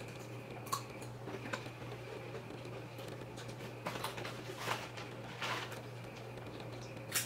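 A makeup highlighter brush swept across the face, giving several short swishes over a steady low hum.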